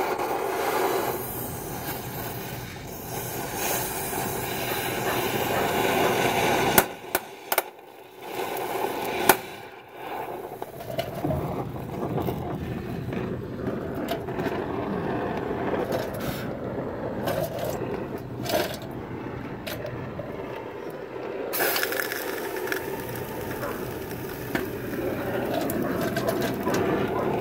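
Oxy-fuel cutting torch hissing steadily as it melts away a seized shock-mount nut, with a few sharp pops between about seven and ten seconds in.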